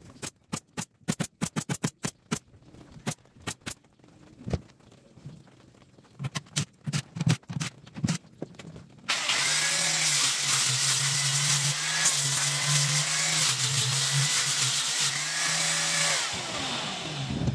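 A quick run of sharp clicks and knocks against the plywood cabinet, then a cordless drill runs under load in the plywood for about seven seconds and winds down with a falling whine.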